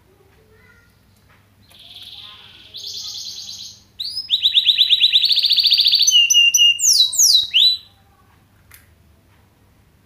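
A mozken, a yellow-fronted canary × domestic canary hybrid, singing one song phrase in the canary style it is learning. The phrase starts about two seconds in with a buzzy note and a fast trill, swells into a loud rolling trill, and ends with a few quick falling notes.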